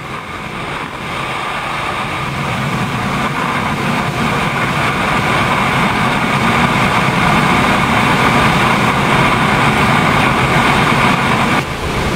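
Boeing 777 in flight heard from outside the fuselage: a steady rush of airflow with the jet engines' drone and whine, growing gradually louder.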